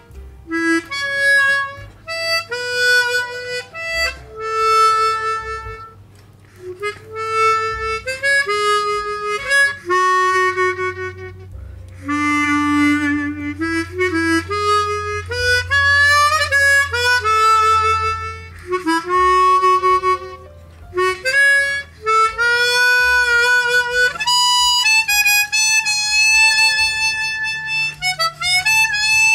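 Hohner Chrometta 12 chromatic harmonica, in its factory setup, playing a melody: single held notes in phrases with short breath pauses, some notes sliding into the next.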